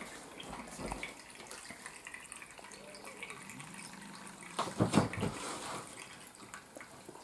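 Water running and splashing as a little is let out of an overfilled inflatable spa tub into a floor drain; briefly louder about five seconds in.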